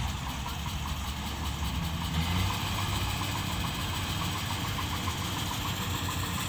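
Kubota rice combine harvester running steadily as it works the paddy, a low engine hum with a faint regular ticking above it.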